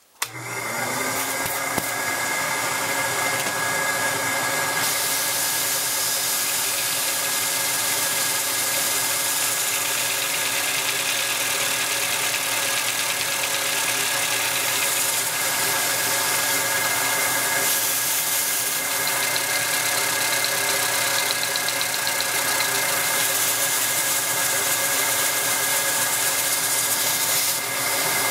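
Lego short-stroke four-cylinder two-stroke engine running steadily at high speed, fed through a hand-held hose: a constant hiss of the driving gas with a whirring, rattling hum from the plastic cylinders and crank that sets in abruptly and holds even.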